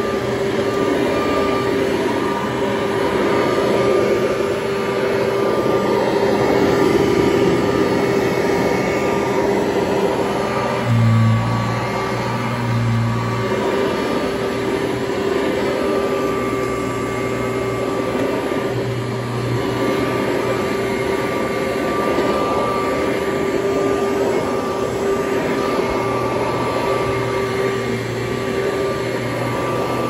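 Kirby Heritage upright vacuum cleaner running steadily as it is pushed over a rug: a continuous motor whine over a rushing of air, with a deeper hum that comes and goes several times.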